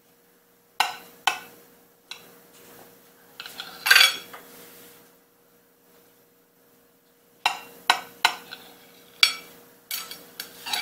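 Knife clinking and scraping against a ceramic plate while slicing wedges from a soft steamed cake: a series of sharp clinks in small groups, the loudest cluster about four seconds in, over a faint steady hum.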